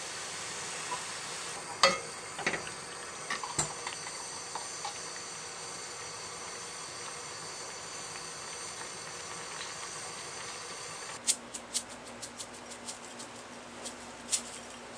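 A utensil knocks against the pot a few times, about two to four seconds in, as squid is stirred in simmering braising sauce over a steady hiss. About eleven seconds in the background changes, and a run of sharp clicks and taps follows as a glass food container is handled on the counter.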